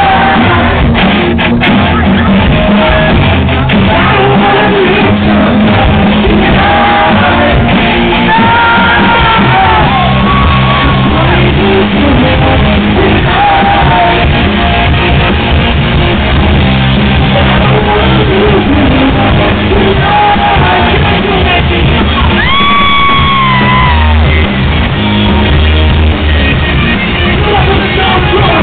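Live rock band playing loud: electric guitars with a lead vocal that is sung and shouted over them, in a large room.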